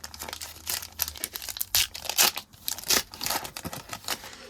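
Trading card pack wrapper being torn open and crinkled by hand: irregular crackling and rustling that comes and goes.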